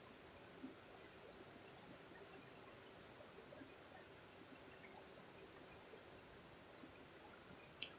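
Near silence, with faint high-pitched chirps repeating about once a second.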